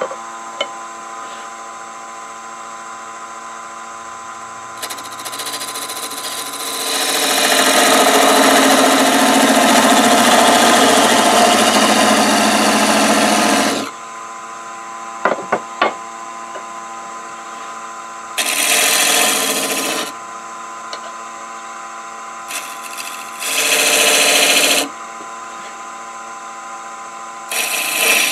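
Nova wood lathe running with a steady hum while a skew chisel cuts the spinning wooden piece: one long cut of about seven seconds, then shorter cuts of a second or two each, the last starting near the end. A few sharp clicks fall between the cuts.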